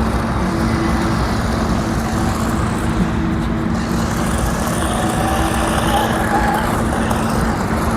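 Toy RC Formula car running on a floor, its drive motor and built-in engine sound effect making a steady hum, with a slight rise in pitch about five seconds in.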